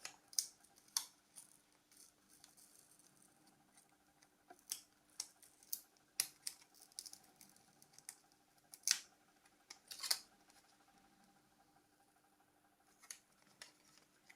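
Irregular small sharp clicks and scrapes of tools and plastic and metal parts being worked apart on a Nokia 6210s Navigator phone, the two loudest clicks about nine and ten seconds in, over a faint steady hum.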